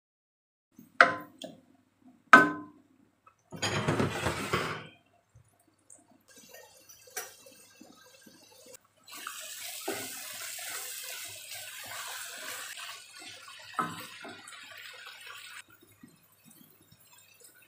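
Chili paste frying in oil in a pan, sautéed until the oil separates: two sharp knocks of a wooden spatula against the pan about a second apart, a brief burst of stirring noise, then a steady sizzle.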